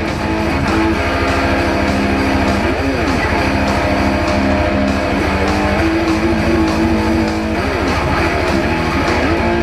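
Rock band music without singing: electric guitar playing held notes with a couple of bent notes over bass guitar and a steady beat.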